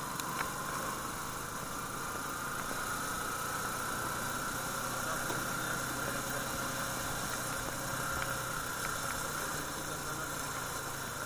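Motorcycle engine running steadily while riding, with the hiss of tyres on a wet road.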